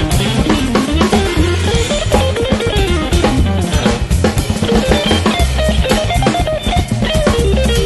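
Instrumental groove with a melodic guitar line over electric bass and a drum kit with a steady beat.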